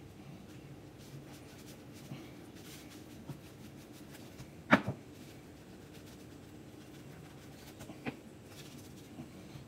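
Glass muller grinding watercolour paste on a glass slab in circular strokes, mulling pigment into gum arabic: a soft, low smearing. A sharp knock comes about halfway through, with a lighter one a few seconds later.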